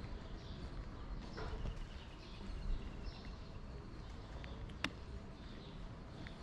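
Outdoor walking ambience: a steady low rumble with faint bird chirps and scattered footstep clicks, and one sharper click about five seconds in.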